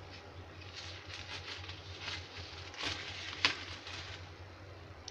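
Paper tissue rustling and crinkling as a hand blots oil from freshly fried paneer fingers on a plate, with a sharp tap about three and a half seconds in, over a low steady hum.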